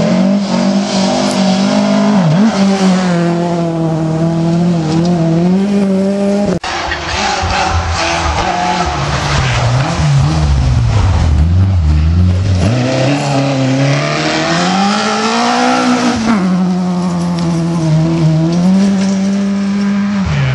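Rally car engine running hard at high revs, its pitch dipping and climbing with lifts and gear changes. About six and a half seconds in the sound breaks off abruptly. It picks up again lower, climbs, dips once more and then holds high.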